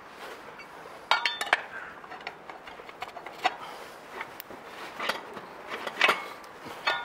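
Metal tyre lever clinking against the spoked rim and tyre changer as the first bead of a knobby enduro tyre is levered onto the rim. A quick run of three or four ringing clinks about a second in, then single clinks every second or so.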